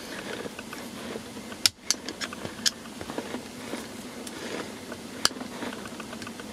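A thin metal tool prying and scraping at the plastic shifter bushing's side tabs where they clip into the BMW E30's aluminium shift housing, with a few sharp clicks as the tool catches and slips.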